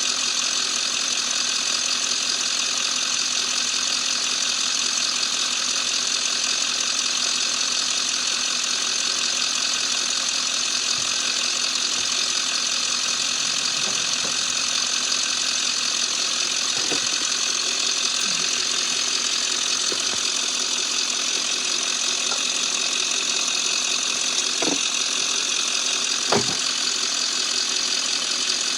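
Ambulance engine idling steadily, with a few short clicks in the second half.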